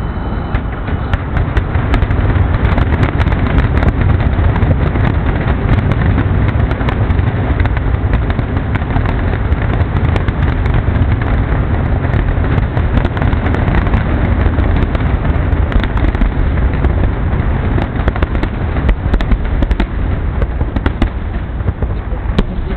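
Aerial fireworks in a rapid, continuous barrage: booms and crackling bursts follow one another so closely that they blend into one dense, unbroken sound.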